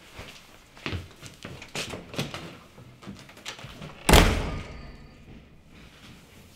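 Apartment front door slammed shut about four seconds in: one heavy bang that rings on briefly. It follows a run of lighter knocks and shuffling.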